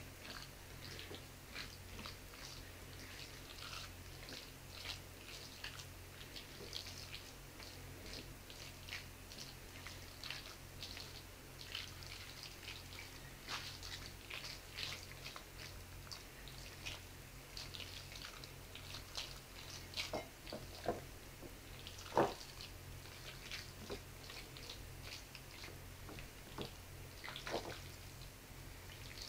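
Silicone spatula mashing and stirring a moist cauliflower and minced chicken mixture against a plate: a run of soft, quick squelches and scrapes, with one louder knock about three-quarters of the way through, over a low steady hum.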